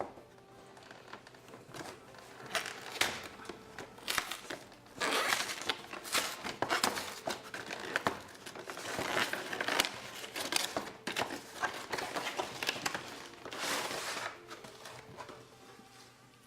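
Cardboard and plastic packaging of a Pokémon card collection box being worked open by hand: irregular crinkling and rustling, with scattered sharp clicks and scrapes.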